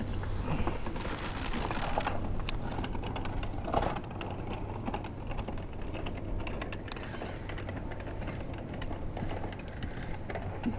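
Light, irregular clicking and tapping from a spinning rod and reel being handled, with one sharper click about two and a half seconds in.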